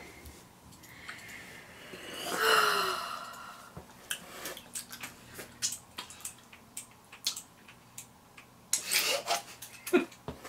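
A short, loud, breathy vocal sound about two and a half seconds in. It is followed by scattered small clicks and rustles as a plastic soda bottle is handled and drunk from, with another breathy sound near the end.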